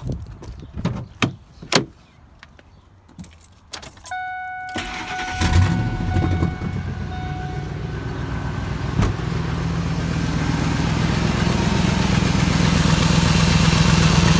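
Clicks and knocks of keys being handled, then a 2000 Ford F-150's 5.4-litre V8 cranks and starts about five seconds in and settles into a steady idle that grows louder toward the end. It is running on a shorter serpentine belt routed past the eliminated air-conditioning compressor.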